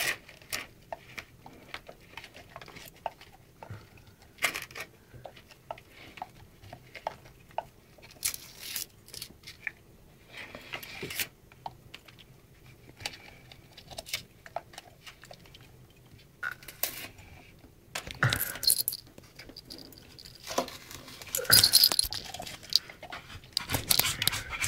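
A dog tearing wallpaper off a wall with its teeth: irregular ripping and crinkling of paper, with louder stretches of tearing in the last third.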